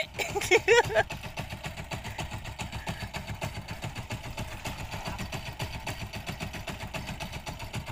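Fishing boat's engine running steadily with a fast, even pulse. A voice is heard briefly in the first second.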